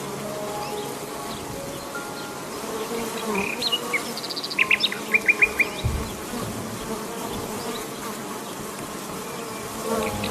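Insects buzzing steadily, with a quick run of about five short bird chirps a little before halfway.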